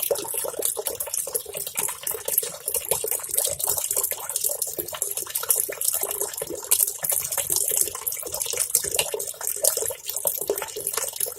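Tap water pouring from a hose into the half-full wash tub of a Godrej semi-automatic washing machine, a steady splashing as the tub fills.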